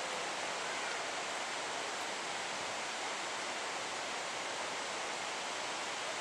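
Steady rushing hiss of outdoor background noise, even throughout, with no distinct sound from the distant train.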